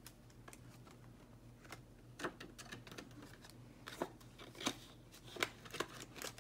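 Paper dollar bills rustling and crackling as they are handled and slipped into a cash envelope in a binder, with several short, sharp crinkles from about two seconds in.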